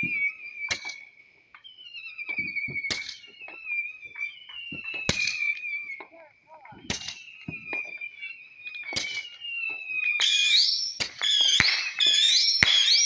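Fireworks going off, a sharp bang about every two seconds over a continuous high, wavering whistle-like tone. About ten seconds in it turns into a louder, denser run of bangs and crackle.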